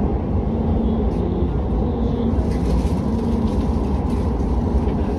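Passenger train running between stations, heard from inside the carriage: a steady, loud, low rumble with a faint hum coming and going.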